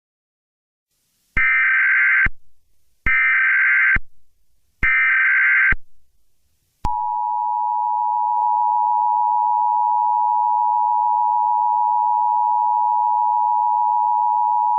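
Emergency Alert System SAME header: three short bursts of warbling data tones, each under a second, about a second apart. About seven seconds in, the steady two-tone EAS attention signal begins and holds.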